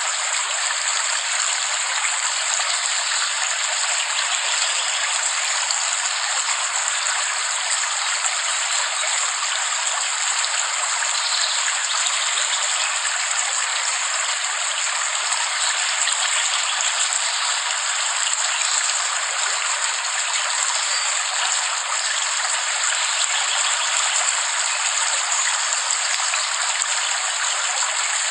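Steady rain falling, an even, unchanging hiss with no low rumble.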